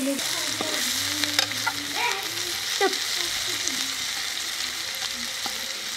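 Sliced onions sizzling steadily in hot oil in a black frying pan, stirred with a flat spatula, with a few sharp scrapes and taps of the spatula against the pan.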